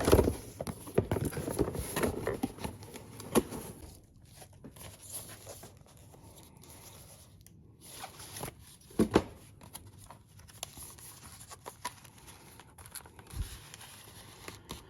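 Cardboard boxes and packaging being handled and opened: rustling, tearing and knocking, busiest in the first few seconds, with a sharp knock about nine seconds in and scattered ticks afterwards.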